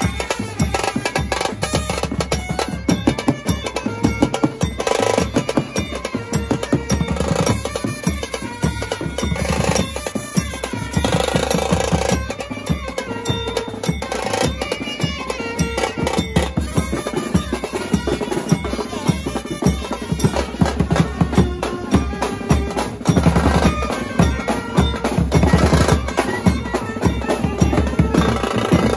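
Indian brass band playing a processional tune live, with trumpets, saxophones and clarinet on the melody over drums.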